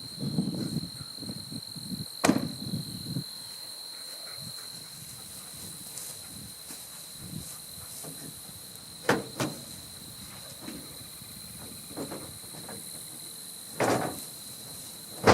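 Crickets or other insects trilling steadily in a high, even tone, with a handful of sharp knocks: one about two seconds in, a quick pair around the middle, and two more near the end.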